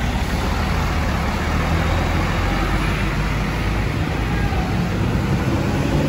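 A large vehicle's engine running steadily, with a constant low hum over traffic noise.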